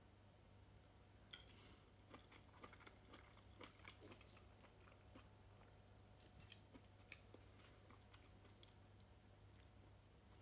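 Faint soft squishing and small clicks of a metal fork working pieces of baked chicken breast out of a creamy sauce on a plate, the sharpest click about a second and a half in, over a faint steady low hum.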